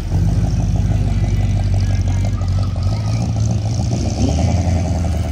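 A car's engine and exhaust running loud, with a deep, steady rumble and a fast, even pulse as the car pulls away under power.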